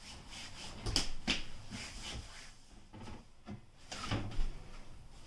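A cloth rubbing over wooden kitchen cabinet doors, with a few soft knocks as the doors shift against their frames, the loudest about a second in and just after four seconds in.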